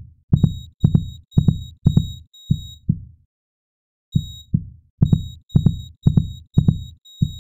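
Synthesized heartbeat sound effect from a Flash animation: deep thumps about two a second, each with a short high beep over it. The beating stops for about a second midway, then starts again.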